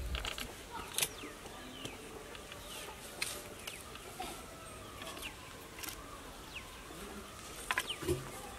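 Scattered knocks and scrapes of earth and stones as a pit in dry soil is dug out by hand, the loudest knocks about a second in and near the end. Faint bird calls sound behind.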